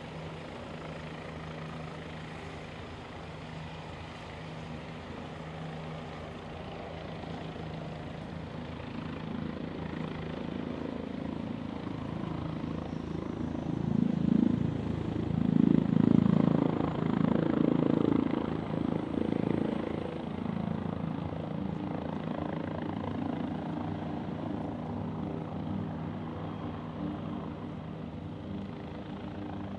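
A seaplane's propeller engine running steadily. It grows louder to a peak about halfway through, then eases back.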